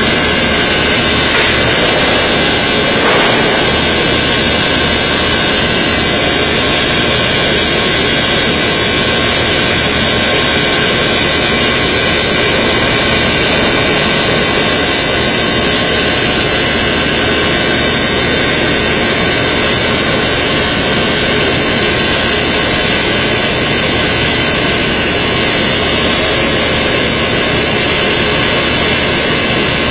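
Loud, steady roar of industrial machinery where sheet metal is being seam welded, a continuous noise with a faint hum that holds level throughout.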